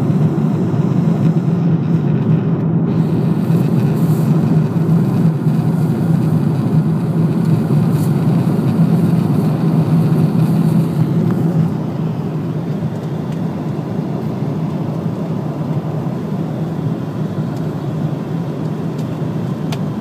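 Steady airliner cabin noise in cruise flight: the rushing drone of the engines and airflow with a low hum under it. It gets slightly quieter about twelve seconds in.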